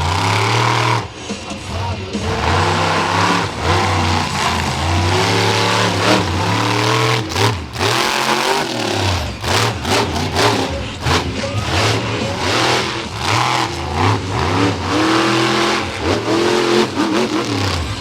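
Monster truck engine revving hard, its pitch climbing and falling again and again, with several sharp knocks in the middle as the truck slams down.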